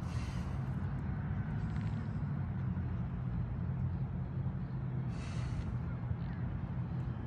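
A person breathing hard while holding a deep squat: a few short hissing breaths, roughly every two to three seconds, over a steady low rumble.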